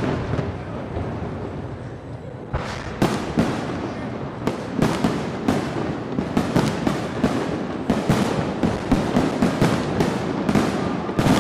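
Aerial fireworks display: a low rumble fading away, then from about two and a half seconds in a run of sharp bangs that comes faster and faster, several a second toward the end.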